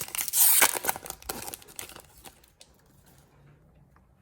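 An NBA Hoops trading-card pack's wrapper being torn open and crinkled, busy for the first second and a half, then dying away to quiet with a few faint ticks.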